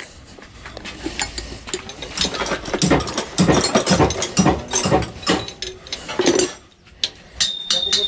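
Hand ratchet clicking in quick runs, with metal tools clinking, as it turns bolts on the rocker-arm assembly of a 4BC2 diesel engine's cylinder head.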